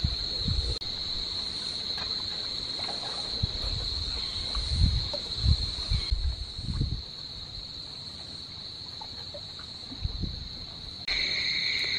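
Steady high-pitched insect drone, with a second, lower-pitched insect tone joining about a second before the end. Low gusty rumbles of wind on the microphone come and go.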